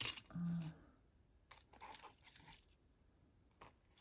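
Light clicks and rustles of small craft objects being picked through and handled on a plate, with a brief low hum about half a second in.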